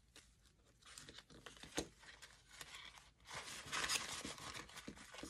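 Paper bills and a paper cash envelope being handled, rustling and crinkling, with a sharp tap about two seconds in and a louder stretch of rustling a little past the middle.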